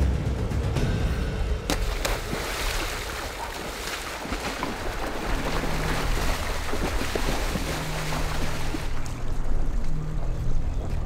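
Water splashing as a person drops into a shallow river and thrashes through it: a sharp splash just under two seconds in, then several seconds of churning, sloshing water that dies away near the end.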